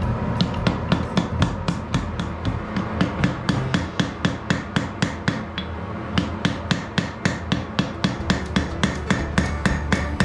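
Blacksmith's hand hammer striking glowing bloomery iron on an anvil, in a steady rhythm of about three to four blows a second.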